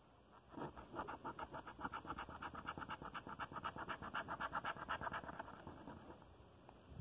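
A coin scratching the coating off a scratch-off lottery ticket in quick, even back-and-forth strokes, several a second. The scratching starts about half a second in and stops about a second and a half before the end.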